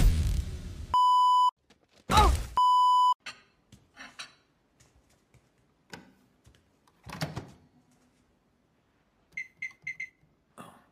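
A hit, then two long electronic beeps with a brief swooping sound between them; then a few soft clicks and a thump, and near the end four quick microwave-oven keypad beeps as buttons are pressed.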